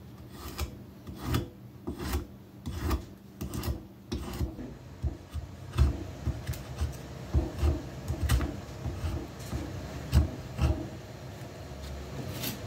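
Vintage spokeshave shaving a weathered wooden board held in a vise: a series of short, rasping scrapes, roughly two strokes a second.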